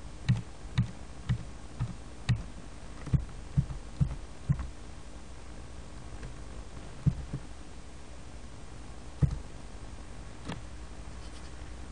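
Computer keyboard keys pressed to step through presentation slides: soft thumping clicks, about nine at roughly two a second over the first four and a half seconds, then three more spread out, over a steady low hum.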